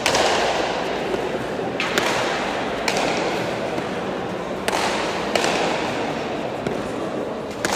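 A bare-hand Basque pelota rally: about six sharp smacks of the hard leather ball off the players' palms and the front wall, spaced one to two seconds apart, each ringing on in the echoing walled court.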